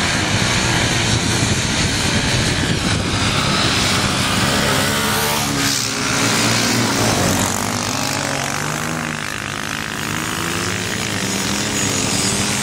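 A pack of off-road and adventure motorcycles revving and accelerating together on sand. Several engines overlap, their pitch rising and falling as bikes pass close by, from about four seconds in.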